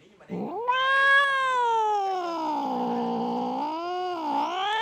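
A cat yowling at another cat: one long drawn-out call that rises at first, sinks slowly, wavers, then climbs again near the end.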